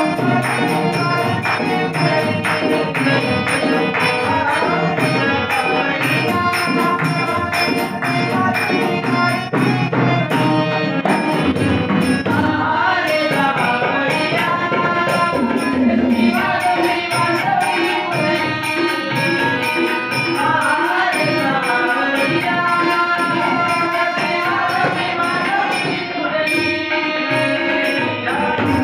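Marathi gavlan devotional folk song: men singing together over harmonium, tabla, a two-headed barrel drum and small hand cymbals, the drums keeping a steady, brisk rhythm.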